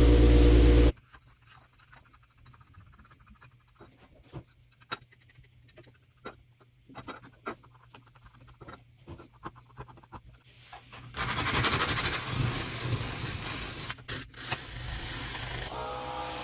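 Workshop restoration sounds. A steady-running power tool cuts off about a second in, followed by several seconds of scattered light clicks and taps from hand work on the grinder's parts. About eleven seconds in, a loud, noisy tool run, like sanding, starts and continues.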